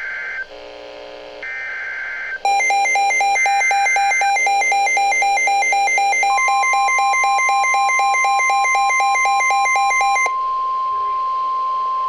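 NOAA weather radio receiving a warning alert. Two short screechy digital header bursts sound near the start. About two and a half seconds in, the radio's own loud, rapidly pulsing alarm beep starts. About six seconds in, the steady single-pitch NWS warning tone joins it and carries on alone after the beeping stops near the end.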